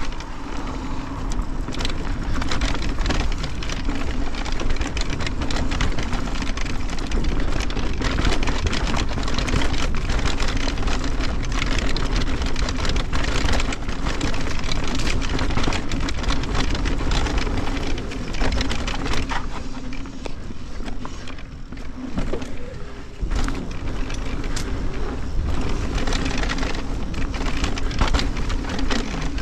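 Fezzari Timp Peak electric mountain bike rolling down a dirt singletrack: tyres crunching over dirt and small rocks, with frequent rattles and clacks from the bike over bumps and a steady hum underneath. Wind rumbles on the microphone.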